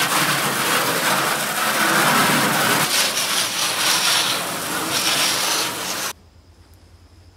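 A garden hose jet spraying water onto an aluminum canoe hull, rinsing it: a loud, steady hiss and splatter of water on thin metal that cuts off suddenly about six seconds in.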